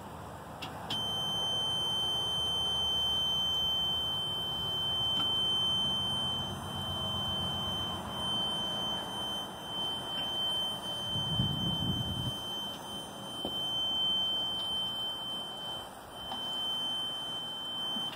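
Golf cart's reverse warning buzzer sounding a steady high-pitched tone. It starts about a second in and holds with one brief break near the end.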